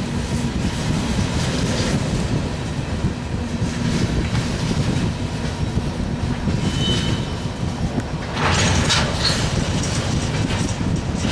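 Freight train cars rolling past with a steady rumble and wheels clacking over the rail joints, a brief high wheel squeal about two-thirds of the way in, then louder clattering near the end.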